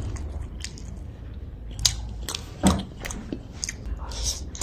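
A person eating fried fish and rice with wooden chopsticks from a porcelain bowl: chewing, with several scattered light clicks of the chopsticks against the bowl.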